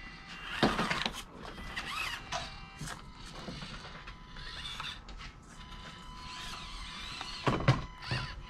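Small electric motors and gear trains of Axial SCX24 micro RC crawlers whining steadily as they crawl over the course, with a few sharp knocks, one about three-quarters of a second in and a louder pair near the end.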